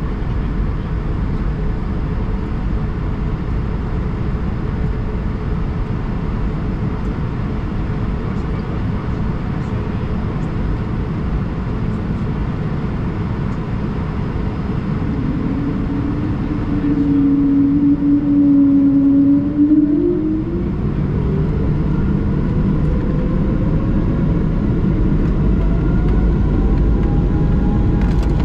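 Cabin noise inside an Airbus A220 on the ground: the steady rumble of its Pratt & Whitney PW1500G geared turbofans. About halfway a louder steady hum sounds for a few seconds, then a whine rises steadily in pitch through the last third as the engines spool up for takeoff.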